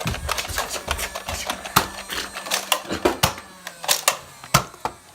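Rapid, irregular plastic clicking and clacking from handling a Nerf blaster, with a few louder knocks among the smaller clicks.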